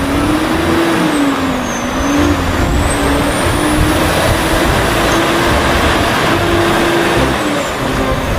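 A motor vehicle's engine running steadily: a dense, noisy rumble with a hum that wavers slightly in pitch and a faint high whine that dips about two seconds in and rises again.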